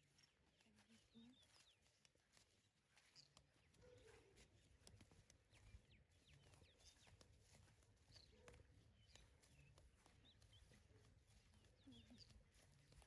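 Near silence: faint open-field ambience with a few scattered faint bird chirps and soft footsteps.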